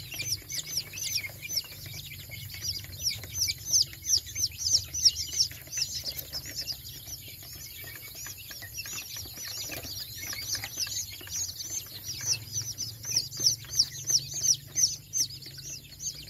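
A brood of young chicks peeping continuously, many short high chirps overlapping, thinning out for a few seconds midway.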